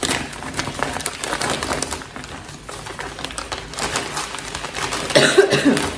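A parcel's packaging being handled and torn open by hand, with crackly rustling and crinkling throughout. A short low pitched sound, a hum or coo, comes near the end and is the loudest moment.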